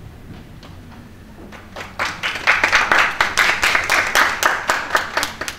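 Audience applauding, starting about two seconds in and stopping near the end.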